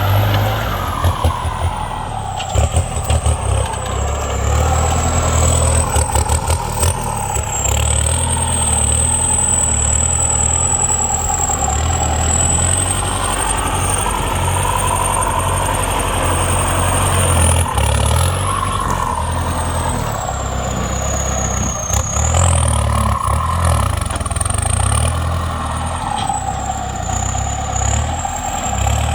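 Kubota M9540 tractor's diesel engine running steadily while ploughing, with a high whine that drifts up and down in pitch and a few short rattles in the first seconds.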